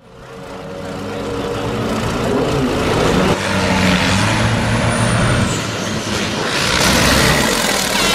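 Racing truck engine running, fading in from silence over the first few seconds, with a thin high whistle that glides up and down about four seconds in and a loud hiss near the end.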